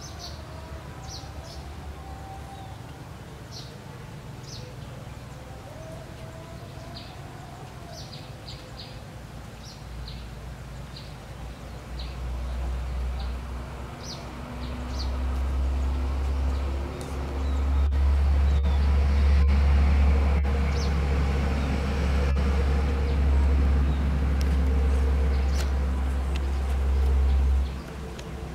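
Small birds chirping in short, high calls. From about ten seconds in, a low rumble swells and becomes much louder than the birds, then cuts off suddenly near the end.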